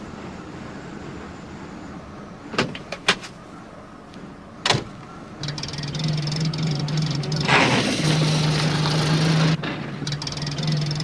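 Cartoon sound effects of a small van: a few sharp door clicks and knocks, then the engine starts up and runs with a steady low hum, getting louder for a couple of seconds in the middle, over a steady background hiss.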